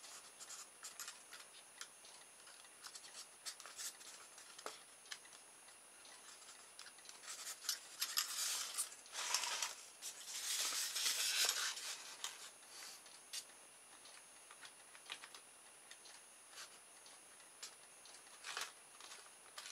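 Handling noise from a small plastic motor kit and its battery holder: scattered light clicks and rubbing, with two longer rustling scrapes about eight and eleven seconds in.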